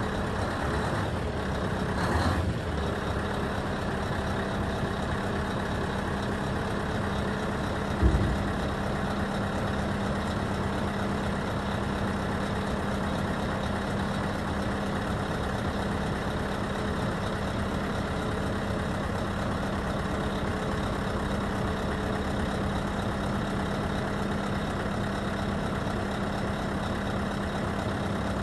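Scania R620's V8 diesel running at a steady idle while the hydraulics lower the tipper body, with a steady hum throughout. A single heavy thump about eight seconds in stands out above it.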